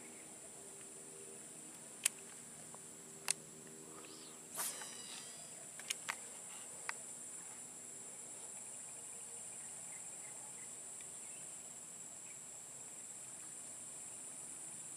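Insects droning steadily at a high pitch. Several sharp clicks and a brief swishing sound in the first seven seconds, from the baitcasting rod and reel being handled and cast.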